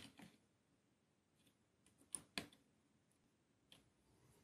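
Near silence broken by a few faint, short clicks of tweezers handling the soldering gun's small lamp holder, the two clearest a quarter second apart about two seconds in.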